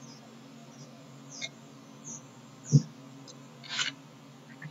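Faint short high chirps, five or six scattered through, like a small bird calling, over a low steady hum. A single sharp click comes a little under three seconds in.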